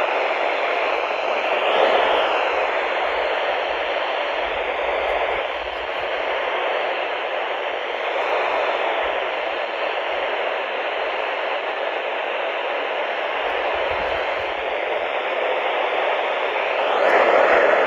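Weather radio receiver putting out loud, steady static hiss with no voice: the warning broadcast has dropped out mid-sentence, leaving only noise.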